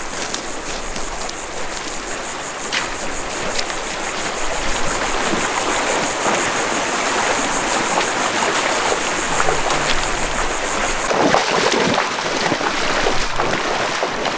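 Steady rush of flowing stream or river water, with a high, evenly pulsing buzz over it that stops about eleven seconds in.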